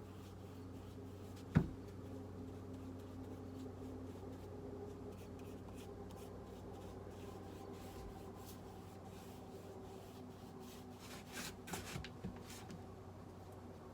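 Quiet handling noises of hand work on a wooden porch rail: a single sharp knock about one and a half seconds in, and a short run of rustling clicks near the end, over a steady low hum.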